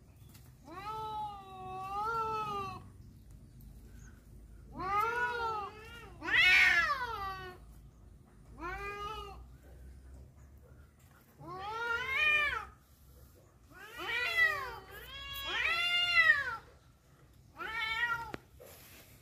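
Tomcat caterwauling in a rivalry over a female cat: about eight long, drawn-out yowls, each rising and falling in pitch, with short pauses between them. The loudest comes about six to seven seconds in.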